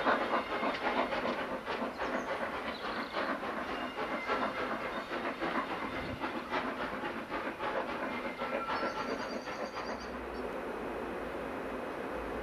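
Steam locomotive hauling coaches away, its rhythmic exhaust beats and wheel clatter fading. About ten seconds in it gives way to a steady low background noise.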